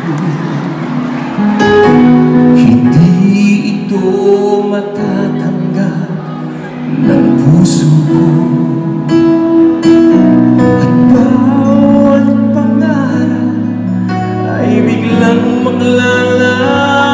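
A man singing an OPM (Filipino pop) love song live into a microphone, backed by a band with drums and guitar, amplified through the concert sound system.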